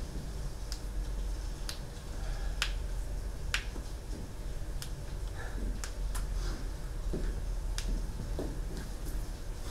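Sharp, isolated clicks, about one a second and unevenly spaced, over a low steady hum.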